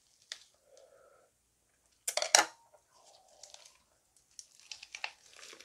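Crisp lettuce leaves crackling as a lettuce wrap of grilled meat is folded in the hands, with a loud sharp crackle about two seconds in. Near the end comes a run of crunchy bites and chewing of the fresh lettuce wrap.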